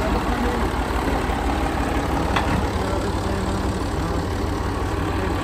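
Massey Ferguson 135 tractor's diesel engine idling steadily, with one brief light click about two and a half seconds in.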